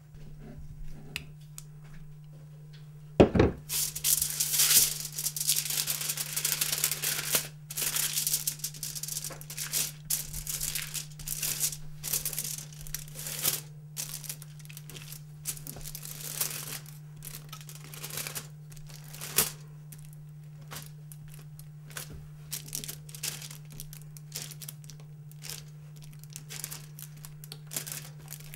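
Scraping and crinkling as the thick cooked bioplastic gel is spread onto an aluminium sheet, with one sharp knock about three seconds in. A steady low hum runs underneath.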